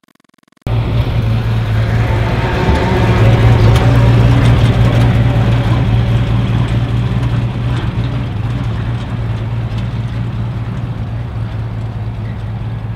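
Engine of a vintage Chevrolet pickup truck running as the truck drives off, starting abruptly with a steady low hum that slowly fades over the last several seconds.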